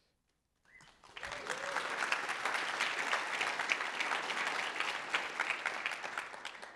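Audience applauding, starting about a second in after a moment of silence and easing off slightly near the end.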